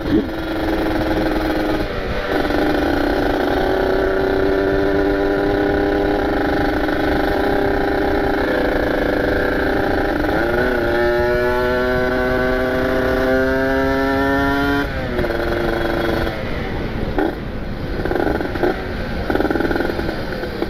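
Ported Kawasaki Ninja RR two-stroke motorcycle engine being ridden hard. The pitch climbs steadily, drops sharply about two and about ten seconds in and climbs again each time, then falls away about fifteen seconds in to lower, uneven running. Wind rumbles on the microphone throughout.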